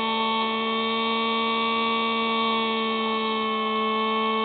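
Hubsan Spy Hawk RC plane's electric motor and propeller whining steadily in flight, heard through the plane's own onboard camera. The pitch holds nearly level, sagging slightly about three and a half seconds in.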